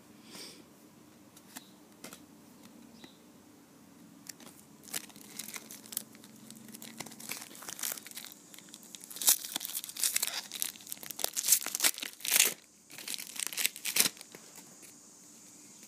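A trading-card pack wrapper crinkling and tearing open. The irregular sharp rustles pick up about five seconds in and are loudest over the last few seconds before stopping shortly before the end.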